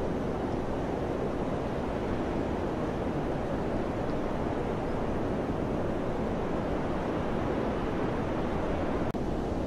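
Steady mountain wind blowing, a continuous rushing noise weighted to the low and middle range, dropping out for an instant near the end.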